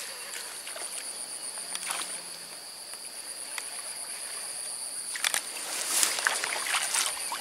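Insects droning steadily in two high unbroken tones. A few short sharp clicks and splashes come about five to seven seconds in, as a baitcasting rod is cast and the lure is worked back across the canal.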